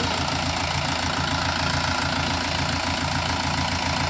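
Mahindra Yuvo Tech+ tractor's diesel engine running steadily while its rear wheels spin in loose dirt: the tractor is stuck, hitched to a trailer.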